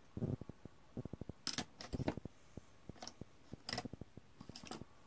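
Irregular small clicks and taps from handling an eyeshadow palette and makeup brush: a few sharp clicks stand out among many faint quick ticks.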